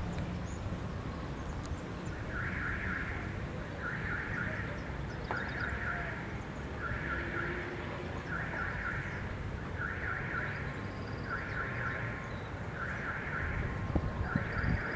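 Level crossing warning bell ringing in short bursts about every one and a half seconds, each burst a rapid ring, over the low rumble of an approaching diesel railcar.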